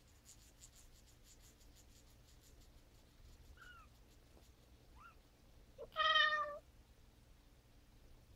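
Young kitten mewing: two faint short squeaks, then about six seconds in one loud, high mew lasting under a second.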